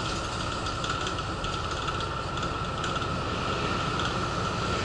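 Interior noise of a moving city bus: a steady engine and road hum, with light rattles and clicks from the bus's fittings.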